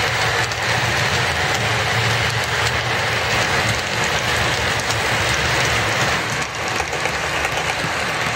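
Model railway trains running past close by: a steady rushing hiss of wheels rolling on the rails with a low motor hum, and faint light clicks from the rail joints and pointwork.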